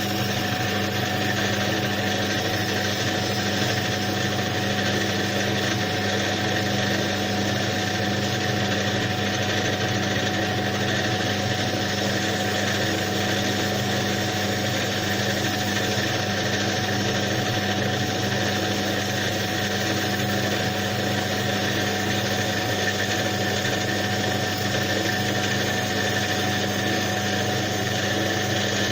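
An electric power tool's motor running steadily with a constant hum while a starter motor's burnt commutator is cleaned.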